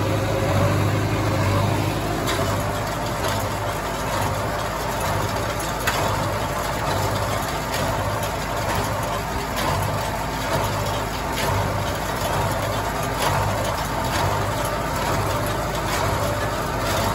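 David Brown 990 diesel tractor running steadily under load, pulling a New Holland 311 small square baler as it picks up and packs hay. Regular knocks from the baler's plunger come about once a second over the engine.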